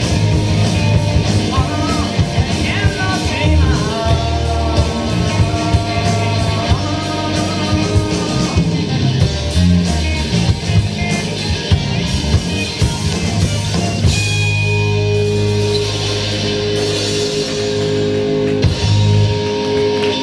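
Live rock band playing with drums, guitar and bass: a singer's melody is heard through the first half, then the band moves into an instrumental passage of long held chords near the end.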